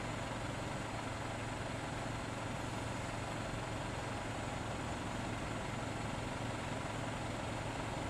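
A vehicle engine idling steadily: an even, unchanging hum with a constant low drone.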